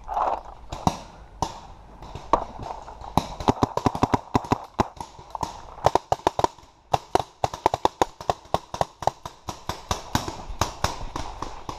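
Paintball markers firing: a few single shots, then from about three seconds in rapid, irregular strings of shots, with a brief lull near the middle.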